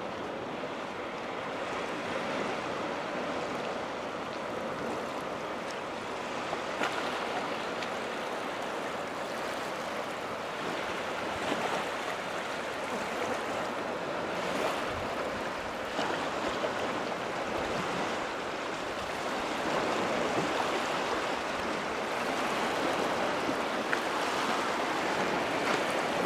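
Lake water rippling and washing along the shoreline: a steady rushing wash that grows a little louder near the end.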